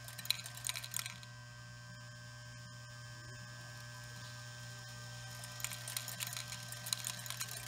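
Kirby Lester KL50 counting machine running with a steady motor hum, while the items it counts clatter through it in quick runs of ticks, during the first second and again from about two-thirds of the way in, as its count climbs.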